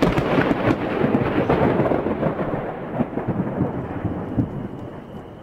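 Thunder: a sudden loud crack followed by rumbling that slowly fades away over about five seconds.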